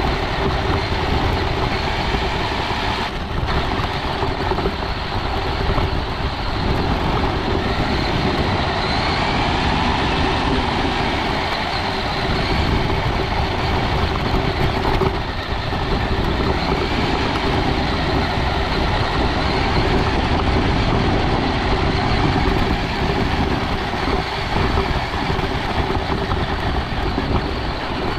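RC scale UTV's motor and drivetrain running as it drives over dirt and grass, heard from a camera mounted on the car, with a steady hum under the tyre and chassis noise.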